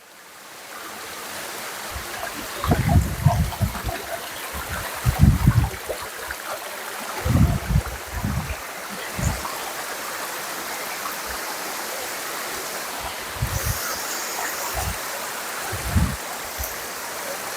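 Creek water rushing steadily, with several short low thumps along the way.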